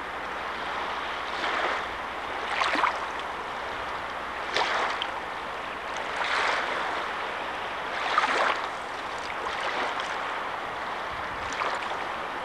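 River water running steadily, with louder splashing surges every two seconds or so.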